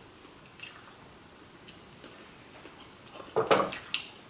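Quiet room with a few faint ticks, then about three seconds in a short burst of rustling and clicks as a hand reaches into a plate of chicken wings.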